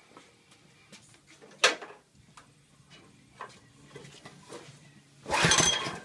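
A sharp knock, then near the end one pull on the mini dozer's small-engine recoil starter: a brief rasping whir as the engine turns over without firing, because it will not restart.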